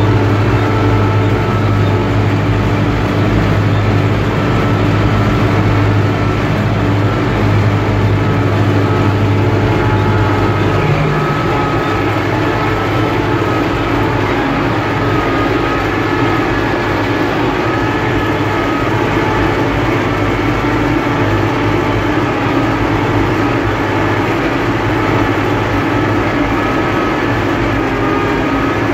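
UTB Universal 650 tractor's four-cylinder diesel engine running steadily under load while pulling a seedbed cultivator, heard from inside the cab. About eleven seconds in, its low note changes and the hum settles at a different pitch.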